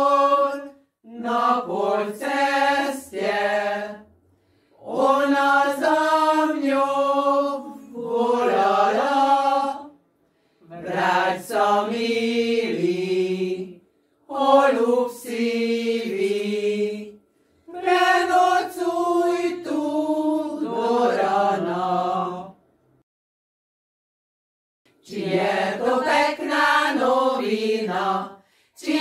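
Women's folk choir singing a Slovak folk song a cappella, in sung phrases of a few seconds each with short breaths between, and a pause of about two seconds a little past the middle.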